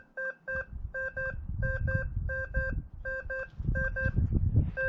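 Quest 80 metal detector sounding a mid-pitched target tone in repeated double beeps, about seven pairs, one pair every 0.7 s or so, as the coil is swept back and forth over a copper penny. This is its response to a copper coin reading target ID 54.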